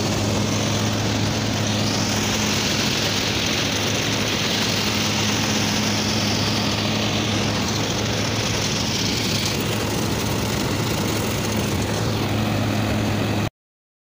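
New Holland 8070 combine harvester running steadily while harvesting sunflower: its engine and threshing machinery make a constant drone with a low hum. The sound cuts off suddenly near the end.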